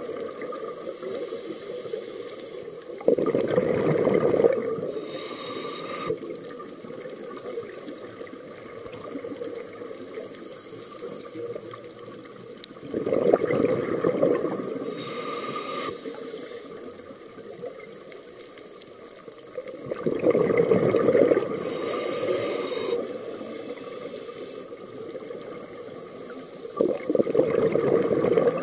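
Scuba diver breathing through a regulator: a short hiss on each inhalation and a louder bubbling rush on each exhalation, repeating about every seven seconds, four exhalations in all.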